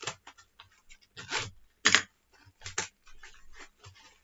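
A small tape-wrapped package being slit and torn open by hand: a run of short, irregular scratchy crackles of tape and plastic wrapping, the loudest about two seconds in.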